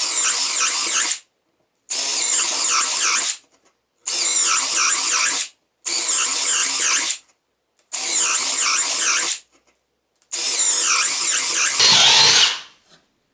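Parkside Performance PBSPA 12 B2 12 V brushless cordless drill driver running in six short bursts of a second or two, each stopping again after a brief run with a short silence between. The overheated tool's temperature protection keeps cutting it out, its LED flashing.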